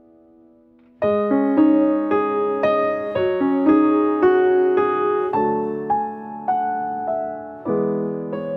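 Background music: a keyboard plays a gentle melody over chords, each note struck and fading. It comes in loudly about a second in, after a faint held chord.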